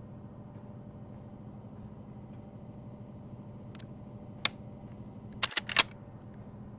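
A steady low hum, then a faint click, a single sharp click about four and a half seconds in, and a quick cluster of three or four sharp clicks or snaps near the end.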